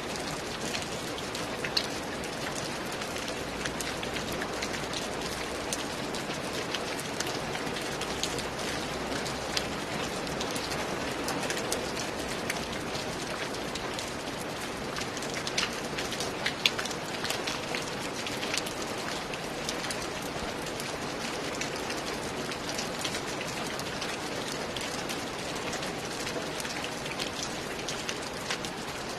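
Steady rain falling on a roof, a constant hiss with many sharp individual drop hits and a few louder drops.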